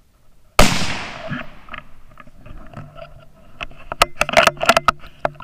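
A single .17 HM2 rimfire rifle shot about half a second in, with a tail that fades over about a second. A run of sharp clicks and rustles follows, thickest near the end.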